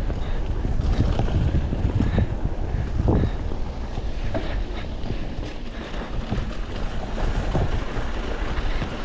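Wind buffeting a helmet- or bike-mounted action-camera microphone during a fast mountain-bike descent, a steady rumbling rush. Scattered short knocks from the Cannondale Habit 3 full-suspension bike rattling over bumps on the wet trail break through it.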